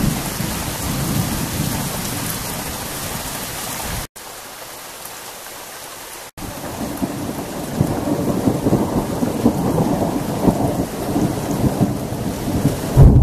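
Thunderstorm: steady heavy rain with rolling thunder. The sound drops suddenly to quieter rain for about two seconds around four seconds in, then a long rumble of thunder builds from about seven seconds and ends in a loud clap.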